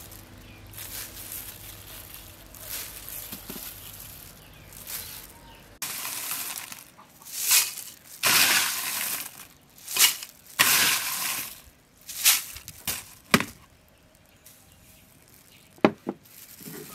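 Crushed ice poured in several loud rushes into a glass blender jar, rattling and clinking against the glass, followed by a few sharp clicks near the end.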